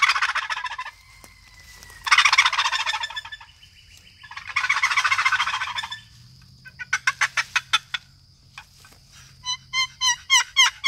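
Long box turkey call of mineralized green poplar with a walnut paddle, shaken to make three gobbles, each a fast rattle about a second long. The gobble's pitch shifts as the paddle is worked down the rail. Then comes a quick run of sharp clicks, and near the end a string of short pitched calls as the paddle is stroked across the box.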